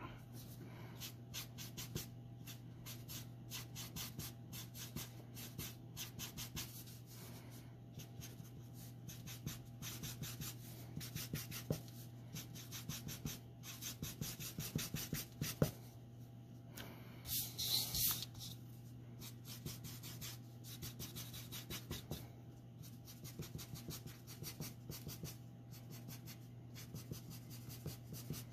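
Copic alcohol marker (Neutral Gray N2) scrubbing on paper in small circular strokes: a steady run of quick, soft scratches. A brief louder swish comes a little over halfway through.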